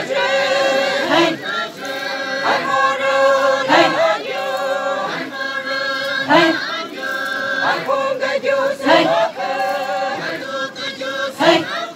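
A group of voices chanting a traditional dance song in unison, holding long notes, with a sharp accented syllable every second or two.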